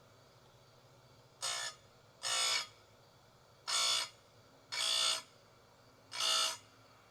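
Oregon 410-120 chainsaw chain grinder touching its spinning stone to the chain's cutter teeth, five short buzzing grinds of about half a second each, roughly one every second or so.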